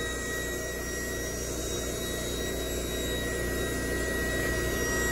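A small electric pump running steadily, an even whir with a thin high whine, while a kiddie pool is being set up.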